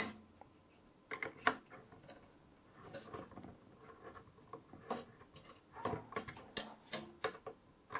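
Long screwdriver turning a tower CPU cooler's mounting screws: faint, irregular metallic clicks and scrapes, a few at a time.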